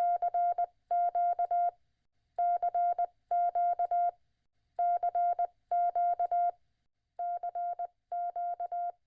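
Morse code beeps: one steady tone keyed on and off in quick dots and dashes, in eight short groups, the last two quieter.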